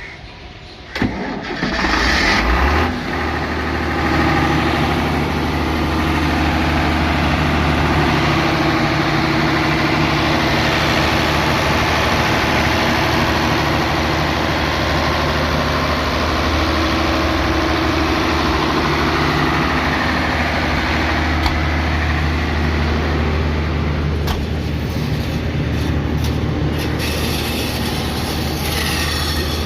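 Ashok Leyland Hino water-cooled diesel engine of an 82 kVA generator set being started. It cranks and catches about a second in, runs unevenly for a couple of seconds, then settles into a steady run at its governed generator speed.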